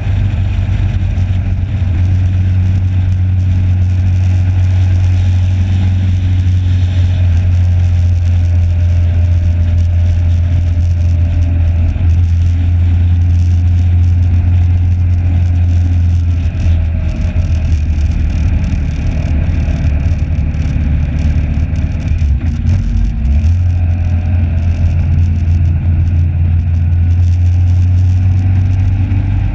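Motorcycle engine running steadily at track speed, heard from an onboard camera with wind rush over the microphone. The drone dips briefly a couple of times in the second half.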